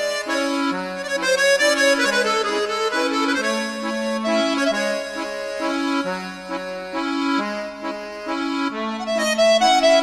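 Instrumental background music: a melody in held notes over a bass line that changes note about every half second.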